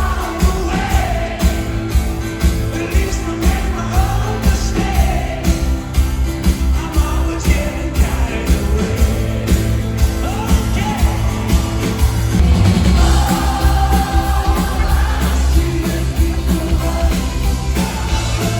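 Live rock band playing with a sung lead vocal over a steady drum beat of about two beats a second.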